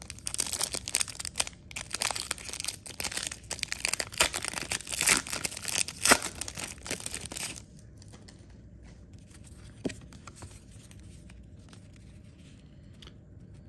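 Baseball card pack wrapper being torn open and crinkled: a dense crackling that stops about seven and a half seconds in, followed by a single soft click near ten seconds.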